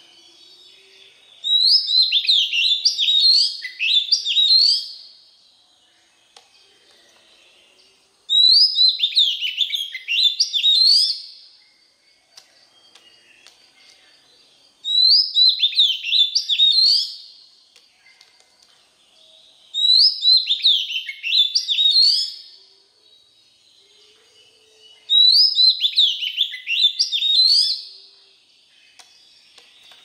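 Oriental magpie-robin (chích chòe than) singing five bursts of quick, slurred whistles, each about three seconds long and several seconds apart, with notes sliding up and down.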